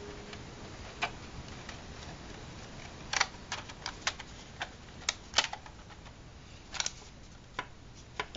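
Plastic model-kit parts clicking and tapping as a white sheet is pressed and worked into the tan plastic walls of a model building: scattered sharp clicks, busiest in the middle.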